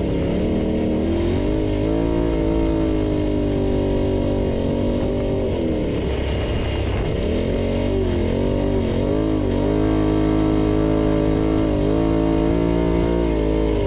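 Off-road vehicle engine running hard at riding speed. Its pitch holds mostly level, dips about six seconds in and again about nine seconds in as the throttle is eased, then climbs back.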